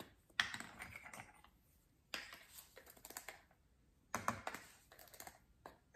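Light clicks, taps and scrapes of a measuring spoon against a spice bottle and a small glass jar as onion powder is measured out, in three short bursts with brief pauses between them.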